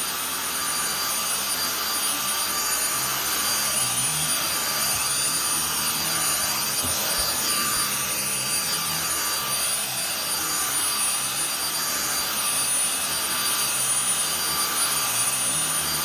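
Carpet cleaning machine's vacuum running at about 2,000 RPM with its filter removed, pulling hard through the hose: a steady rushing suction noise with a constant high whine.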